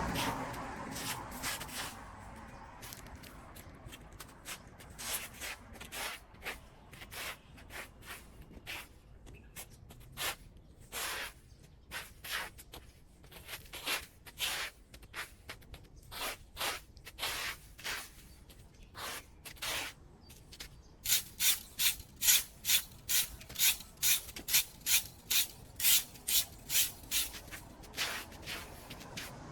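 Repeated scraping strokes of a hand tool working through debris. They come irregularly at first, then settle into a louder, even rhythm of about two strokes a second for the last eight seconds or so.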